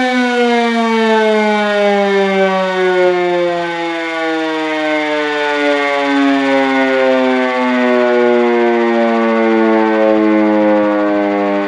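Civil defence warning siren sounding a long tone with many overtones, its pitch falling slowly and steadily and levelling off lower near the end.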